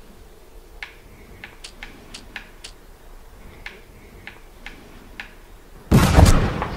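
A run of light, irregular clicks, then near the end a single loud gunshot from the rifle in the video game on the TV, lasting under a second.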